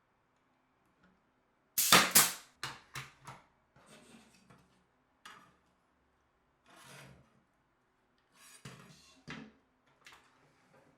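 Wooden parts being handled on a workbench: a loud clatter of knocks about two seconds in, then scattered knocks and scrapes.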